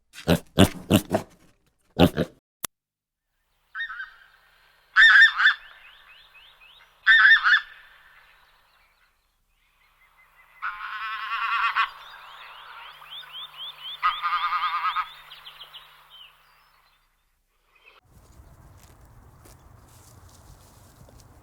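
Geese honking: two loud honks about five and seven seconds in, then a longer run of honking calls. The run is preceded by a quick series of short, loud sounds in the first two seconds, and is followed by a faint low background noise near the end.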